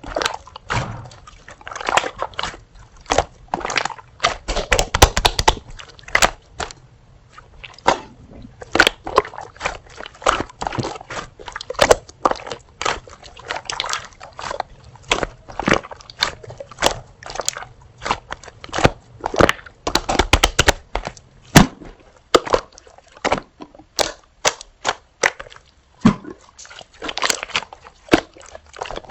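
Slime being squeezed and poked by hand, a continuous run of irregular crackling, popping clicks.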